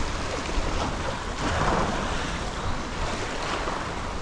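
Surf washing against the jetty rocks, surging louder about a second and a half in, with wind buffeting the microphone.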